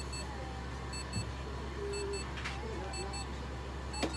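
Faint electronic beeping: short high beeps, often in pairs about a quarter second apart, repeating every second or so over a steady low hum. There is a sharp knock near the end.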